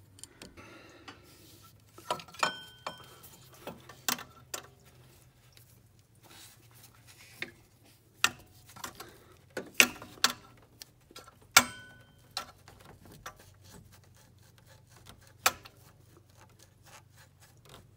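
Scattered metal clicks and clinks of hand tools and engine parts as the water pump is worked loose and pulled off a Jeep Wrangler's 4.0 engine. A few of the knocks ring briefly.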